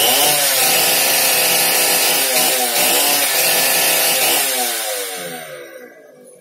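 Two-stroke chainsaw engine running at high revs, its pitch swinging up and down a couple of times. Near the end the pitch falls and the sound fades as the engine winds down.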